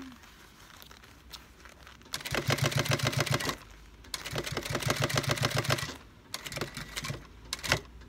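Industrial single-needle sewing machine topstitching through leather in two short runs, its motor humming under a steady clatter of about ten stitches a second, with pauses between the runs. A few single clicks near the end as the work is repositioned under the foot.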